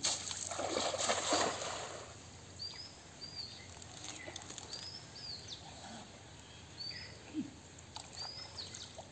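A cast net thrown out and splashing down across the water in the first two seconds. After that a bird chirps repeatedly with short, high calls, about one a second.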